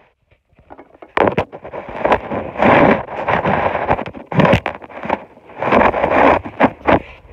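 Cloth rustling and rubbing right against a phone's microphone, with sharp handling knocks, as the phone is jostled by a man's body doing sit-ups. It starts about a second in and comes in several louder surges.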